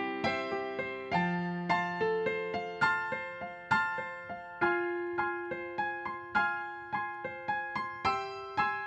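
Solo piano playing a slow ballad passage with no singing. Single notes and chords are struck about twice a second, each ringing and fading before the next.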